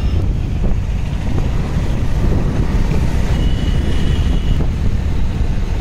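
Wind rumbling on the microphone of a moving scooter, with the scooter's engine and the street traffic beneath it. A high steady tone, such as a horn, sounds for about a second a little past the middle.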